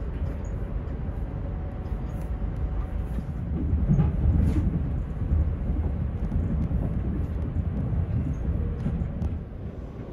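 Low, steady running rumble of an ÖBB 4024 Talent electric multiple unit's wheels on the track, heard inside the carriage. It swells from about four seconds in and eases near the end, with faint clicks and rattles over it.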